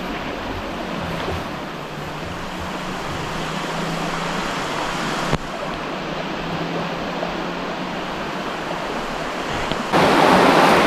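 Steady rushing outdoor noise, without speech. About ten seconds in it gives way abruptly to the louder rushing of a shallow river stream flowing over rocks.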